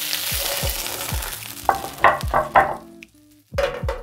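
Pelmeni frying in hot oil in a pan, a steady sizzle that fades as the pan is lifted off the burner. About two seconds in, the fried dumplings tumble and scrape out of the pan into a ceramic baking dish in a run of knocks, with one more knock near the end. Background music with a low, regular beat underneath.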